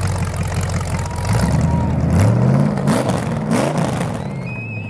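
A car engine revving: its pitch climbs about a second in and then drops back, with two short hissing bursts in the middle of the revving.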